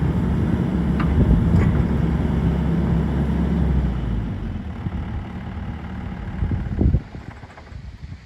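The 2020 Sany SY75C excavator's Isuzu diesel engine running steadily, dropping in level about four seconds in, then stopping with a thump just before seven seconds, leaving only wind.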